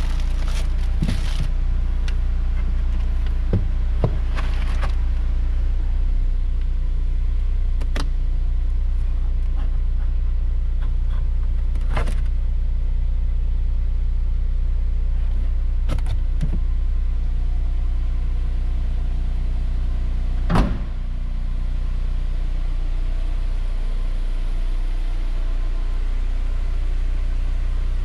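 A car engine idling with a steady low hum. A few sharp clicks are heard, and there is a louder knock about twenty seconds in.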